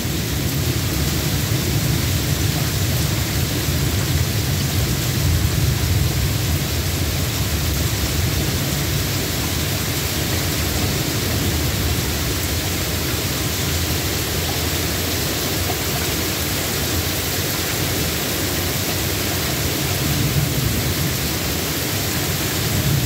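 Steady rain falling, with a low rumble of thunder that swells in the first few seconds and again near the end.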